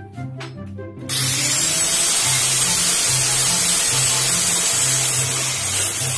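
Electric angle grinder switched on about a second in, its motor whining up to speed and then running steadily with a loud hiss as its abrasive disc grinds down a wooden bolo handle. Background music with a stepping bass line plays throughout.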